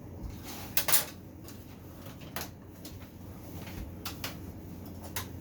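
A few sharp clunks and clicks of tools and parts being handled, the loudest about a second in, then several lighter ones.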